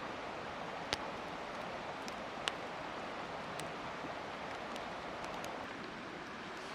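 Steady rush of flowing river water, with two sharp clicks about one and two and a half seconds in.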